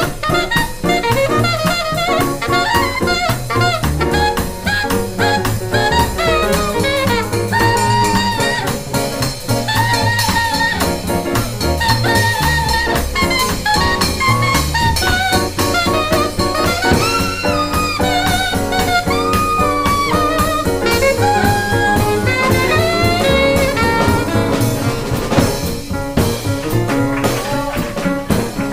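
Small jazz group playing: an alto saxophone solos in quick runs that reach into its high register, over walking double bass, piano and a drum kit's ride cymbal. Near the end the saxophone drops out and the rhythm section plays on.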